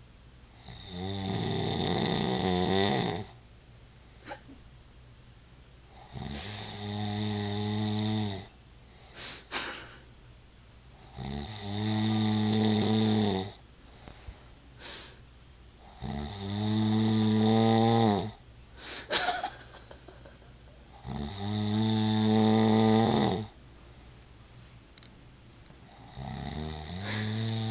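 A man snoring in his sleep: six snores, each about two seconds long with a rattling buzz, coming about once every five seconds. Quiet gaps between them hold a few small clicks.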